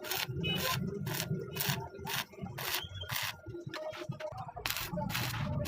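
Mechanical clicking or scraping, about three even strokes a second.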